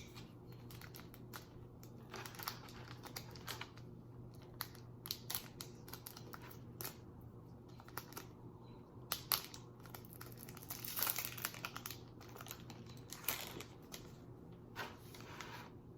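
Foil Pokémon card booster pack crinkling as it is handled and torn open, with scattered rustles and clicks of cards. The crinkling is loudest about nine to eleven seconds in and again near the end.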